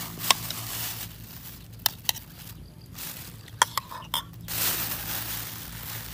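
A few sharp clicks and crinkles, then a clear plastic bag being handled and rustling from about four and a half seconds in, over a steady low hum.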